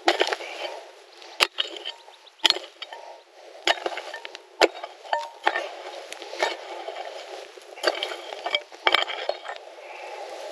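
Repeated sharp strikes of a long-handled digging tool into dry, stony earth, about one a second, with scraping and scattering soil between the blows.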